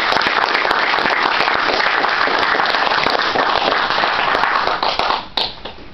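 Audience applauding with dense, loud clapping that fades out about five seconds in.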